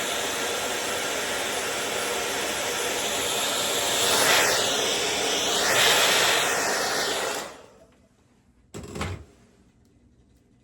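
Hand-held hair dryer blowing steadily as it dries holding spray on a lace wig's edges, its sound wavering for a couple of seconds midway, then switched off suddenly about seven and a half seconds in. A short thump follows about a second later.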